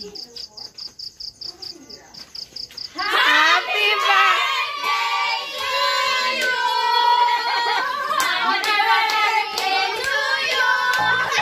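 A quick, even train of faint high-pitched pulses for about three seconds, then a group of voices breaks into song together, a birthday song, with hand claps over it.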